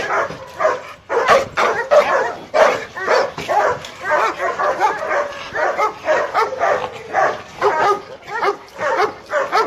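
Several dogs barking and yipping over one another, a dense, unbroken run of barks coming several a second.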